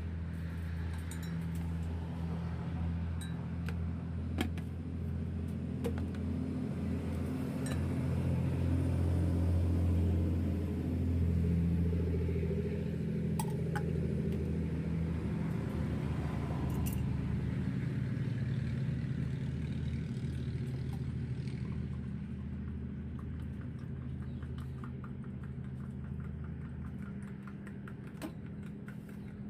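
Motor vehicle engine running nearby, a steady low hum that swells around the middle and eases off near the end, with a few light clicks over it.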